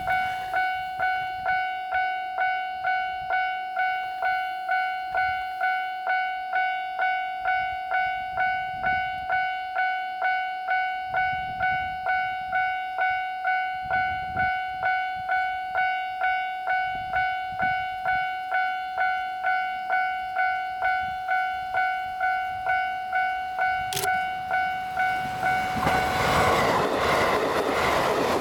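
An electronic level-crossing alarm rings steadily, a little under two dings a second, each ding dying away. Near the end a JR East E531 series electric train passes close by, and its rushing running noise drowns the bell.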